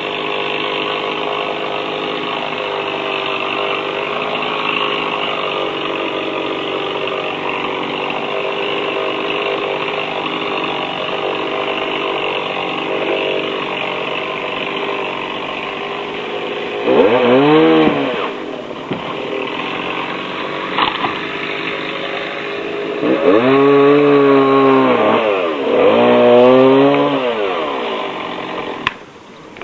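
Chainsaw running steadily, then revved three times in the second half, the pitch rising and falling with each rev, before it drops away near the end.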